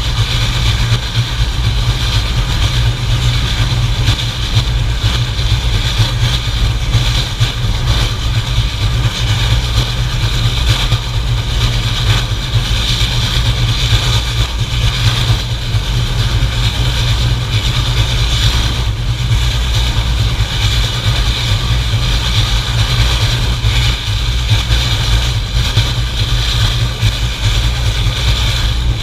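Reading & Northern steam locomotive 425 running along the track, heard from a camera mounted on the outside of its boiler: a loud, steady running noise with a heavy low rumble and no distinct beat.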